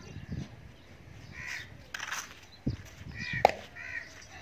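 Crows cawing, short harsh calls repeated a few times. A sharp click or knock about three and a half seconds in is the loudest sound.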